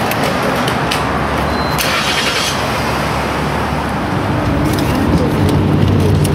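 Steady rumble and hiss of a vehicle on the move, with a few faint ticks and a brief hiss about two seconds in; a low steady hum comes in about four seconds in.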